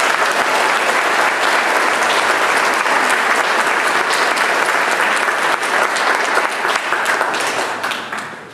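Audience applauding, a dense, steady clatter of many hands clapping that starts suddenly and dies away near the end.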